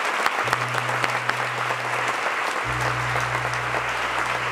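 Audience applauding steadily. A low held note from an instrument on stage comes in under the clapping about half a second in, breaks off briefly, then returns fuller.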